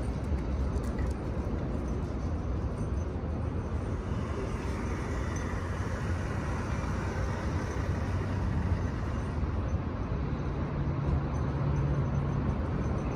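Steady road-traffic rumble from vehicles in a store parking lot. About ten seconds in, a nearby engine hum grows louder for a couple of seconds.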